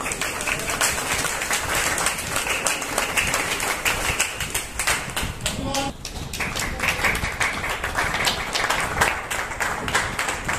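Audience applause: many people clapping continuously, with voices talking underneath.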